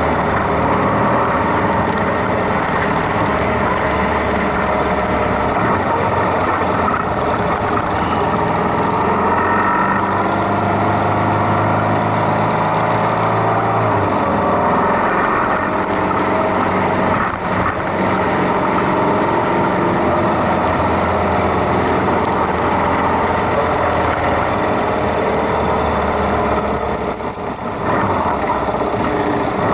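Many motorcycle engines running together in a steady, dense rumble, their pitches drifting up and down as throttles open and close.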